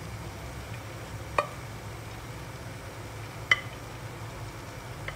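Three sharp clinks of crockery against a non-stick frying pan, about two seconds apart, as diced radish is tipped from a plate into the pan, over a steady low hum.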